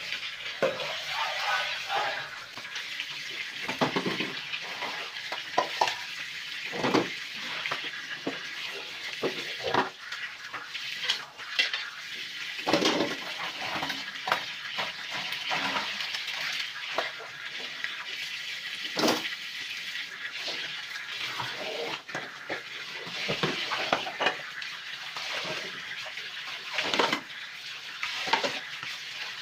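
Tap water running steadily into a sink while dishes are rinsed, with frequent clinks and knocks of a metal pot, plastic bowls and plates being handled and stacked.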